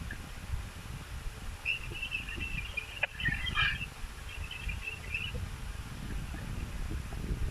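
A bird chattering in a rapid run of high chirps for about three and a half seconds, with a single sharp click partway through, over a low rumble.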